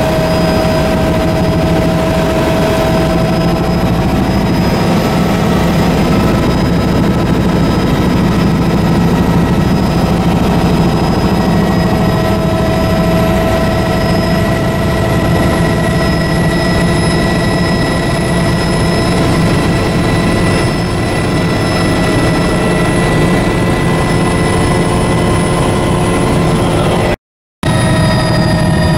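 Helicopter in flight, its engine and rotor running steadily with several high whining tones over a dense drone. The sound cuts out for a moment near the end.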